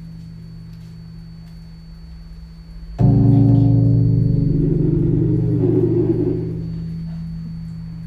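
Live experimental drone music: a steady low drone, then about three seconds in a loud, gong-like tone with many overtones comes in suddenly, swells with a shimmering rattle, and fades back down to the drone.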